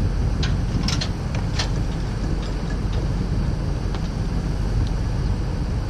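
A steady low rumble runs throughout, with a few sharp clicks about a second in and a couple of fainter ticks later.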